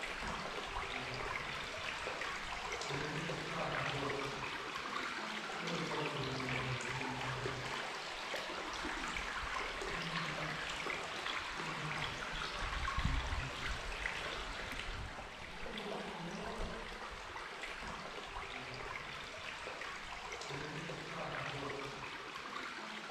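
Water trickling and washing steadily over rock.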